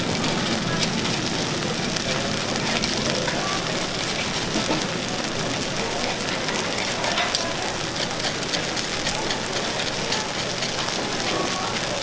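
Takoyaki batter sizzling in oil on a griddle: a steady crackling hiss, with faint voices of passers-by mixed in.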